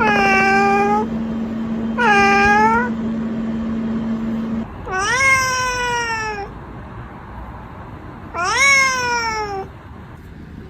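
Domestic cat meowing four times, long drawn-out calls about two seconds apart; the first two hold a steady pitch, the last two rise and then fall. A steady low hum underneath stops about halfway through.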